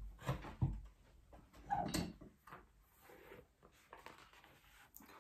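Hand press for rivets and grommets with a hole-cutting die, its lever pulled down in a couple of dull clunks, followed by the rustle of fabric being handled. The die has not cut through the fabric.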